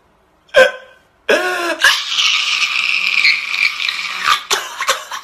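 A man crying hard. A sharp gasp is followed by a loud, strained wail held for a couple of seconds, which breaks into short sobs near the end.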